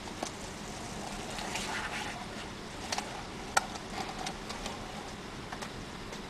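Skateboard rolling along a roadside pavement: a few sharp clicks and knocks, the loudest about three and a half seconds in, over a steady low background noise.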